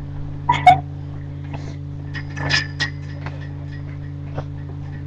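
Soft thumps and rustling of bedding from people tussling on a bed, a few scattered knocks over a steady low hum.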